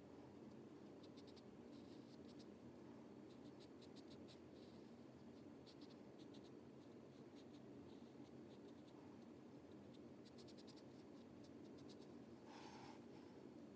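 Faint scratching of a small pointed paintbrush stroking and dabbing paint onto paper, in short runs of quick strokes, over a low steady room hum.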